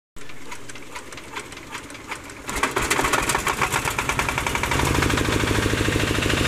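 Generator set's engine being cranked over with a slow clacking of about four strokes a second, then catching about two and a half seconds in and running. It picks up speed quickly and settles into a steady fast run.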